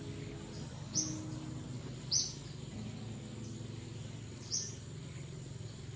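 Short, high bird chirps, single calls repeated at uneven gaps of one to two seconds, over a steady background bed with held low tones.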